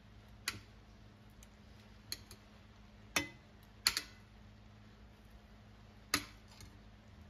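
Metal kitchen tongs clicking and tapping against a pan and each other: about five or six sharp, irregularly spaced clicks, over a low steady hum.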